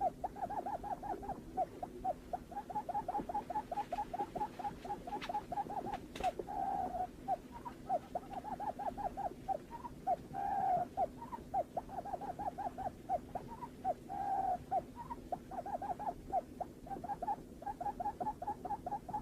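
Barred buttonquail calling: runs of short, quick, falling hooting notes, about five a second, broken every few seconds by a longer single note. A faint steady hum runs underneath, with two soft clicks around five and six seconds in.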